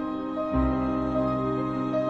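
Orchestral music from a live piano concerto performance: slow, sustained chords, with a deep bass note coming in about half a second in.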